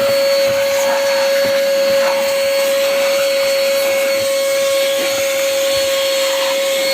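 Cordless handheld vacuum cleaner running steadily in blower mode with its filter removed: an even motor whine over the rush of air.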